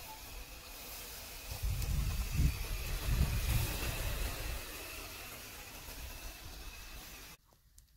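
Wind buffeting the microphone outdoors, heaviest from about one and a half to four seconds in, over a steady hiss with a faint high steady tone; it all cuts off abruptly near the end.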